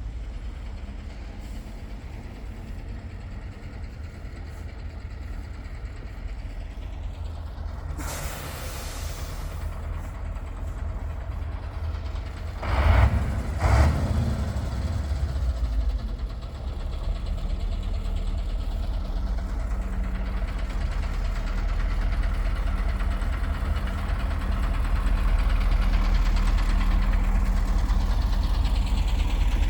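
City street traffic: vehicles passing with a steady engine rumble. There is a hiss about eight seconds in and two loud bursts a second apart at about thirteen seconds. The rumble grows louder toward the end as an engine runs close by.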